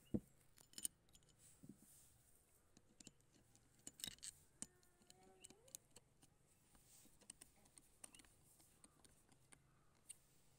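Faint, scattered clicks and light metallic taps of a screwdriver and small parts being handled on a scooter carburettor during reassembly, with a small cluster of clicks about four seconds in.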